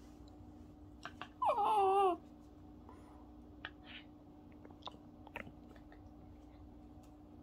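A small dog whines once, a wavering cry just under a second long that slides down in pitch. A few light clicks and taps come before and after it.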